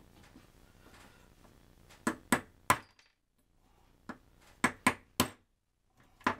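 Small hammer tapping an old ball bearing that is used as a drift to knock the worn bushing out of a bread-maker bucket's cast base. There are about eight sharp metallic blows, mostly in quick runs of three.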